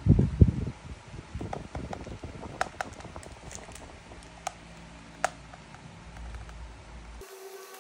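Handling of a plastic DJI drone remote controller: a few low bumps and rustles at the start, then scattered light clicks and taps of fingers on its plastic shell and controls.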